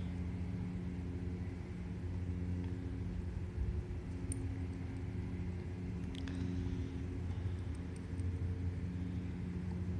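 A steady low mechanical hum like an idling engine, with a few faint clicks, one about six seconds in.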